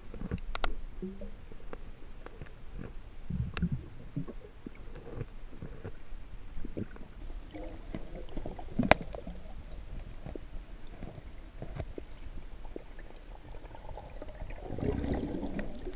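Muffled underwater sound heard through a waterproof camera housing: low rumbling of moving water with scattered clicks and knocks. The rumble grows louder near the end.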